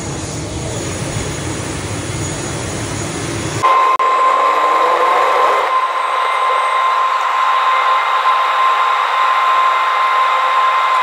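A steady outdoor rumble, then an abrupt cut to inside the cabin of a turboprop airliner on its takeoff roll and climb: engines at takeoff power, a steady high whine over a rushing hiss, with a brief rising tone just after the cut.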